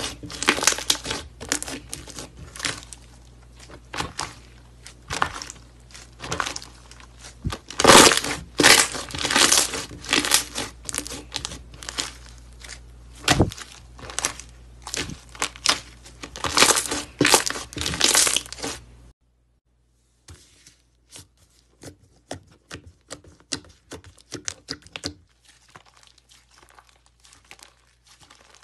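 Thick slime being pressed, stretched and squeezed by hand, giving dense sticky crackling and popping clicks in uneven bursts. It cuts out briefly about two-thirds of the way in, and quieter crackling of another slime follows.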